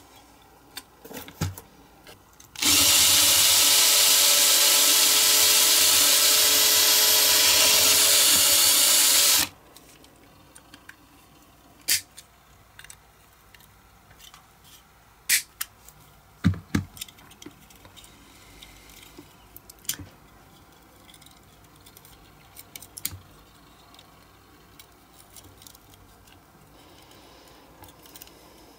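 A small electric drill runs at a steady pitch for about seven seconds, starting a few seconds in. After it stops come scattered sharp clicks and knocks of metal tools as pliers work at the die-cast model's corroded wheel axles.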